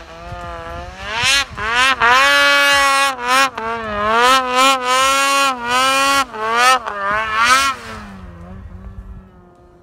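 Snowmobile engine revving hard under throttle, its pitch rising and falling as the throttle is worked, with several brief dips when it is let off, then easing to a lower, quieter tone near the end.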